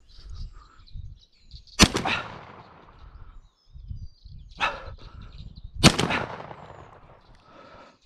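Two shotgun shots about four seconds apart, each with a fading echo, and a quieter bang a second before the second shot. Faint thin high bird calls chirp in between.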